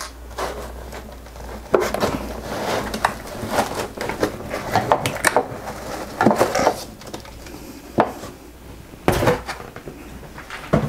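iRangeX IRX IR8M radio transmitter's plastic case being worked out of its foam packing insert: irregular clicks, knocks and scraping of hard plastic against foam, with a few sharper knocks along the way.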